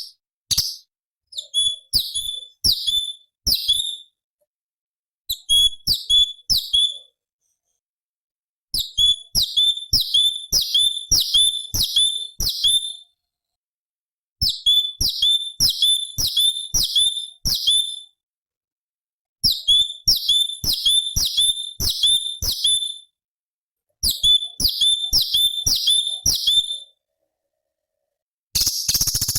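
Orange-bellied leafbird (cucak cungkok) singing a sharp, high note that drops quickly in pitch. The note is repeated about twice a second in runs of three to nine, with short pauses between runs. A harsher, rasping burst comes near the end.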